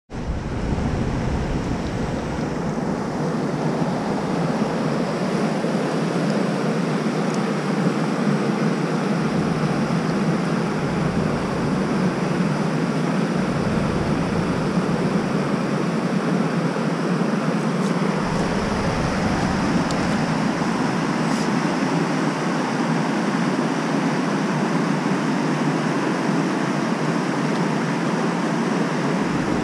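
Steady rushing of a river's rapids and small waterfall, an even, continuous wash of water noise.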